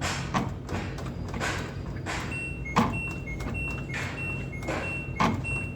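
LG washing machine beeping an error alarm: a repeating pair of high beeps, a lower note then a higher one, starting about two seconds in and going on steadily, which signals the AE error code. Underneath is a steady low machine hum with repeated whooshing sweeps and a few sharp knocks.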